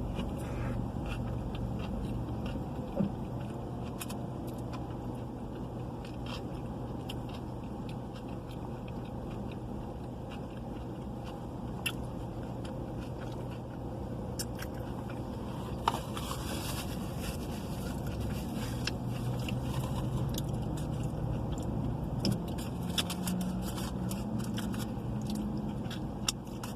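A person eating a burrito in a car, chewing and biting with scattered small clicks and a short rustle about two-thirds of the way through, over a steady low hum of the car.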